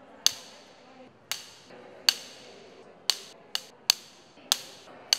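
Film clapperboard clapsticks snapping shut again and again: about eight sharp clacks at uneven intervals, each with a short ring.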